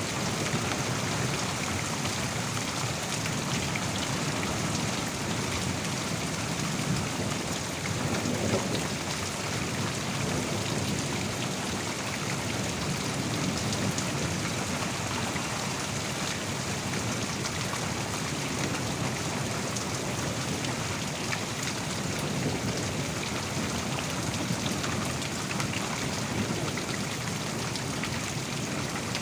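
Heavy rain falling steadily in a thunderstorm, with a low rumble of thunder underneath.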